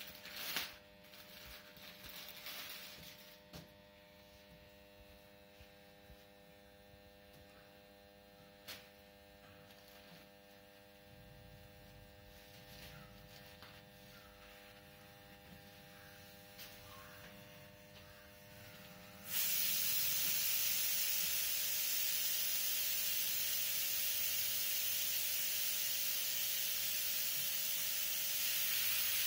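Steady electrical hum with a few soft rustles of cloth being handled; about two-thirds of the way through, a loud steady hiss starts suddenly and continues.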